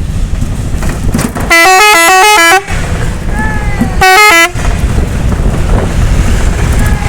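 Telolet musical bus horn playing a fast warble of quickly alternating notes for about a second, then a shorter burst about a second and a half later, over steady low engine and road rumble.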